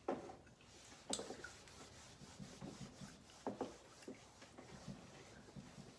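A whiteboard being wiped clean with an eraser: several short scrubbing strokes across the board, the sharpest at the start, about a second in and around three and a half seconds in, with softer rubbing between.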